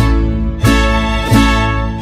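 Mariachi backing track playing an instrumental passage with no voice, strong low notes and chords struck about every two-thirds of a second.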